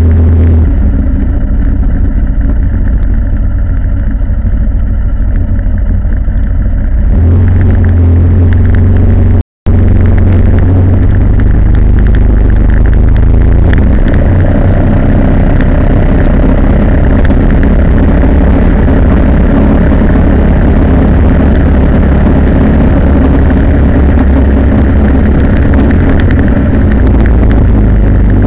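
Vehicle on the move along a road: a loud, steady rumble of engine and road noise, cut by a brief dropout about nine and a half seconds in.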